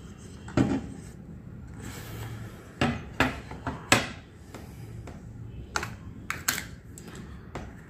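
A digital bathroom scale being turned over and handled on a wooden table: a knock about half a second in as it is set down, then a string of light plastic clicks and taps as hands work on its underside.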